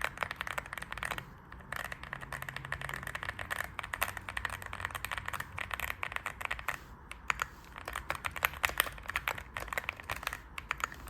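Fast typing on a mechanical keyboard with Akko Creamy Purple tactile switches and frosted transparent keycaps: a quick, steady stream of key clacks with a few brief pauses. The tactile bump gives the switches a loud and creamy sound.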